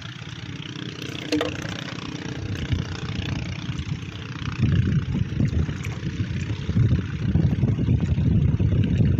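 Small boat engine running steadily, with a low rumble that gets louder about halfway through.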